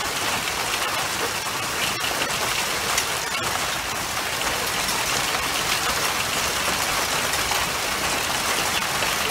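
Hailstorm: hailstones and rain pelting a concrete patio and patio table, a steady hiss dotted with many sharp clicks of stones striking.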